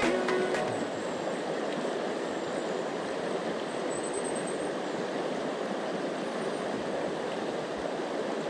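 Mountain river water rushing steadily over a shallow, stony riffle.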